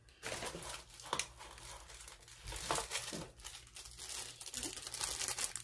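Packaging crinkling as it is handled while an item is taken out of a box: a continuous rustle with several sharper crackles.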